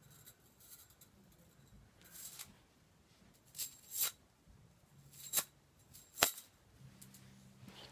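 Quiet handling noise: about five short, sharp rattles and clacks from a small object being fiddled with in the hands, spread a second or so apart.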